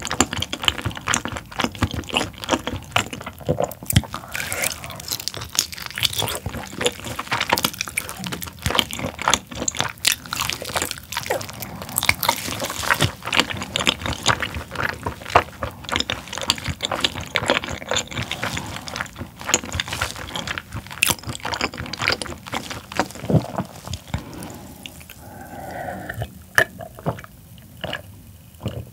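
Close-miked wet, sticky chewing, sucking and smacking while eating a braised whole pork tail, with many quick clicks. Near the end it thins out to a few swallowing gulps from a glass.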